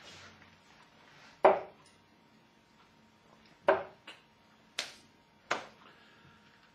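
Steel-tip darts thudding into a Winmau Blade 4 bristle dartboard: a few short, sharp knocks a second or two apart, the first, about one and a half seconds in, the loudest.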